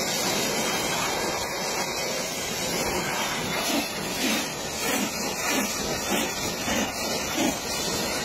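High-pressure washer jet spraying against a truck cab's windshield and front, a steady hiss of water with irregular louder surges of splashing in the second half.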